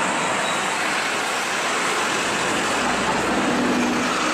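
Street traffic with red double-decker buses driving past: a steady noise of bus engines and traffic.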